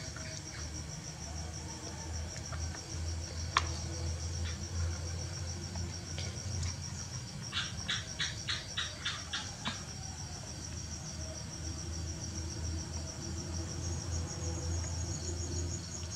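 Cricket trilling steadily at a high pitch over a low hum, with one sharp click about three and a half seconds in and a quick run of about eight clicks around the middle.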